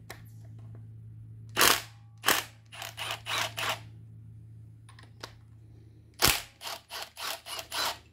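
Sharp clicks and knocks as gloved hands work at the high-pressure fuel pump and its fittings on a 1.6 L EcoBoost engine. There are two loud knocks about a second and a half in, then a quick run of clicks, and another loud knock past six seconds followed by about five more. A steady low hum runs underneath.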